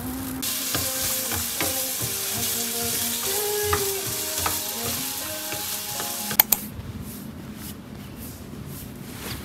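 Diced vegetables sizzling in a frying pan while being stirred with a wooden spatula. The sizzle cuts off suddenly about six seconds in with two sharp clicks.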